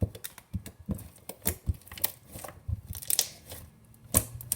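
Homemade fluffy slime being stretched and squished by hand, giving irregular sticky clicks and crackling pops.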